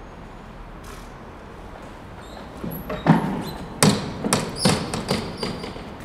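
Footsteps of several people walking on a hard floor: a series of sharp, uneven knocks that starts about three seconds in.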